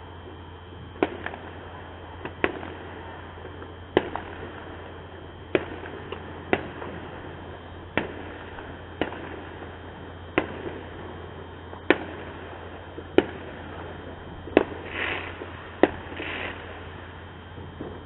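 Fireworks going off: a series of sharp bangs about one to one and a half seconds apart, with two short hissing crackles near the end.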